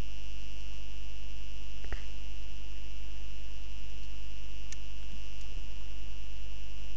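Steady electrical mains hum with a constant high whine and hiss from the recording setup, and a couple of faint clicks about two and five seconds in.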